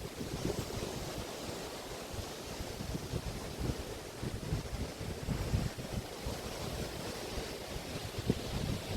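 Waves washing onto an estuary beach as a steady hiss, with irregular gusts of wind buffeting the microphone in low rumbles.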